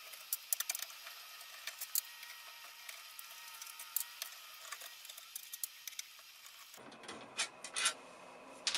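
Faint scraping and sharp little clicks of a screwdriver turning screws out of the wire recorder's metal bottom panel, with small screws being set down on a wooden desk.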